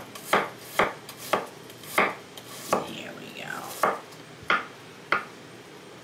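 Chef's knife chopping an onion on a wooden cutting board: about eight separate knocks of the blade against the board at an uneven pace, stopping about five seconds in.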